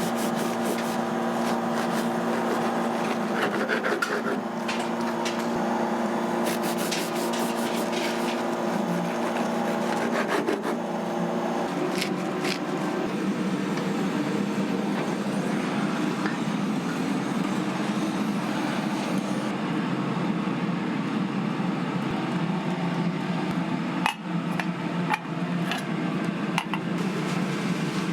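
Kitchen work sounds: repeated scraping and rubbing with many short clicks, over a steady hum of several tones.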